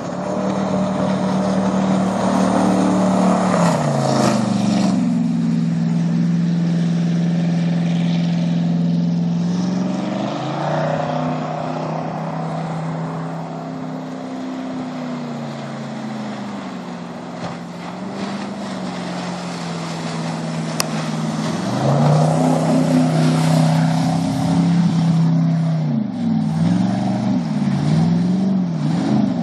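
1971 Sidewinder jet boat's 455 big-block V8 running hard on the water, its pitch stepping up and down as the throttle changes. It grows louder from about 22 s, and near the end it revs quickly up and down several times as the boat swings in close.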